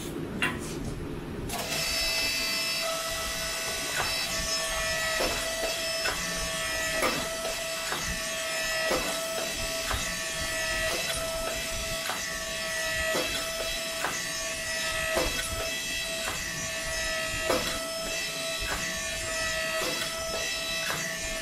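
Homemade hydraulic forging press running with a steady whine from its pump. About once a second a short knock with a falling tone comes through as the ram works the hot steel billet. The whine starts about a second and a half in.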